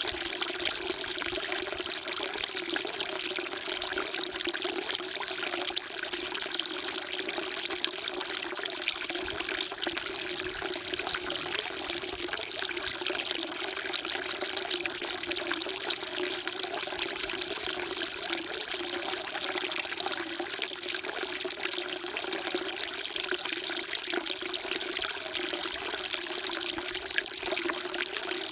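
Water falling steadily into a temple water trough, a continuous even splashing and trickling.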